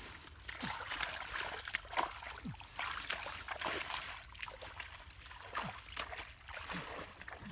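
Boots wading in mud and shallow water, with irregular splashes and squelches.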